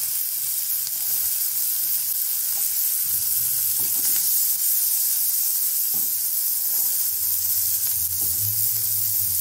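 Chopped onion and vegetables frying in butter in a steel kadhai over a low-medium flame, a steady sizzle. A silicone spatula stirring the pan gives a few light scrapes and taps.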